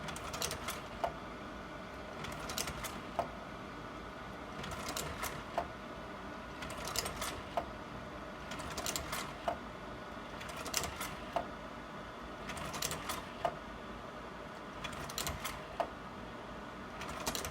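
Sawyer 550R slide projector running with a steady cooling-fan hum while its slide-change mechanism cycles about every two seconds. Each change is a short clatter ending in a sharp click, about eight in all.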